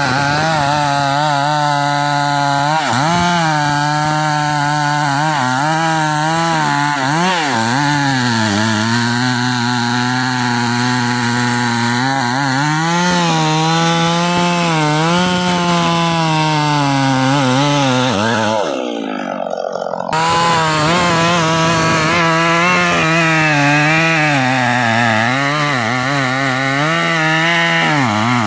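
Stihl MS 381 two-stroke chainsaw cutting through hard rain tree (trembesi) wood, its engine pitch wavering and sagging again and again as it labours under load. About 19 seconds in the sound briefly drops away, then the saw picks up and carries on cutting.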